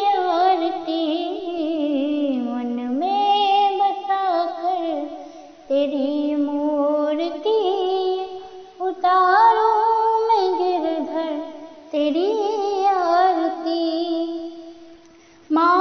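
A high voice singing a Hindi devotional bhajan melody in several long phrases, with gliding, wavering held notes and short breaks between phrases.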